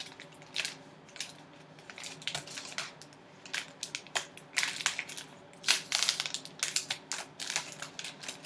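A sealed plastic pouch of trading cards being pulled and torn open by hand, crinkling and crackling in irregular bursts that are loudest a little past the middle.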